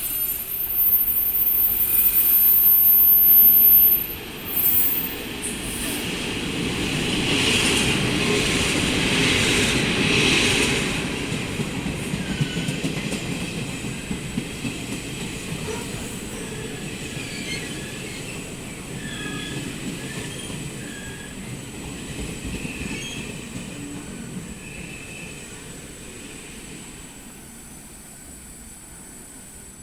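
Taiwan Railway E240 and E235 electric locomotives hauling an empty Chu-Kuang Express train through a station without stopping. It is loudest in the first few seconds as the locomotives pass, then the carriages rumble over the rails with short wheel squeals, fading away toward the end.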